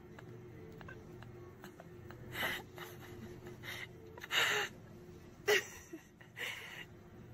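Several short breathy gasps, the loudest about four seconds in, over a faint steady hum, with a few small clicks.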